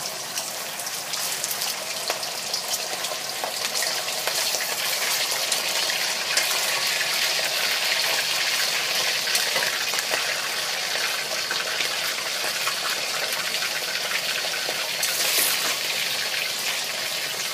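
Raw pork spare ribs frying in hot oil in a pan, a steady loud sizzle and crackle as the moisture in the fresh meat boils off in the oil. The sizzle swells for a moment near the end.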